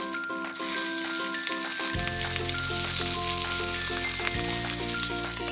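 Chicken pieces sizzling as they brown in hot oil in a pan, the hiss swelling about half a second in, over background music made of a steady run of short notes.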